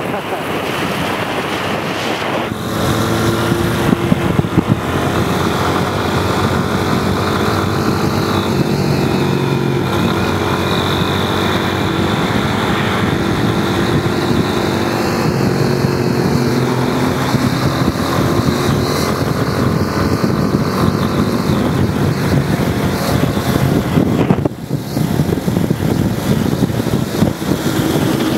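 Motorcycle engine running at road speed, its pitch drifting up and down with the throttle, under heavy wind rush on the microphone.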